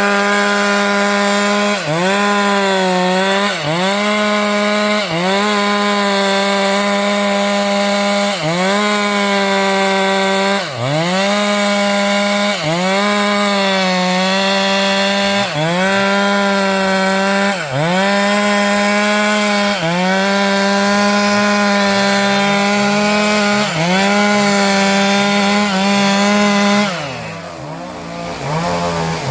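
Stihl MS 462 two-stroke chainsaw running at full throttle, cutting into a sengon trunk. Its pitch dips briefly every couple of seconds as the chain bogs under load, then the revs drop near the end.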